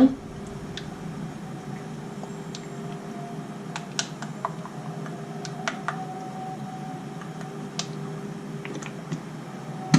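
Scattered light clicks and taps, about a dozen spread irregularly, from kitchen bottles and containers being handled while sesame oil goes in, over a steady low hum.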